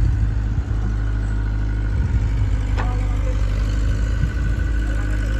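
Heavy diesel engine running steadily at a low rumble, with one short sharp knock about three seconds in.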